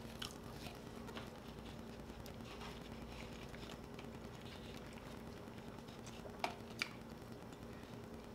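Quiet eating sounds: plastic forks tapping and scraping on paper plates, with soft mouth and chewing noises, and two sharper clicks in quick succession a little after six seconds, over a faint steady hum.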